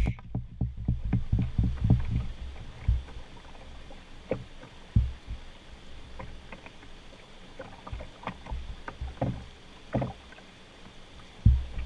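Rapids rushing steadily beside a canoe being poled downstream, with scattered knocks and low thumps from the setting pole and the canoe's hull. A dense run of thumps comes in the first two seconds, then single knocks every second or two.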